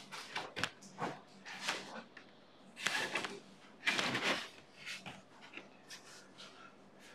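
Rustling and small knocks of handling close to the microphone, with two louder rustling bursts about three and four seconds in.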